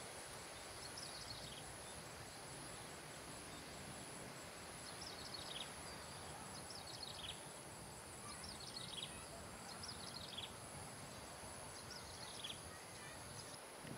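Outdoor ambience: a steady, high insect drone over a faint hiss, with a bird calling six times, each call a quick run of falling high notes, a couple of seconds apart.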